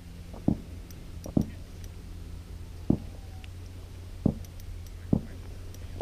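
About five soft, low thumps at uneven intervals, over a steady low rumble.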